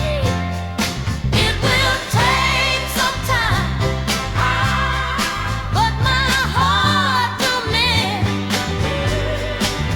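A song with a sung vocal line over bass and drums, in a 1960s pop style.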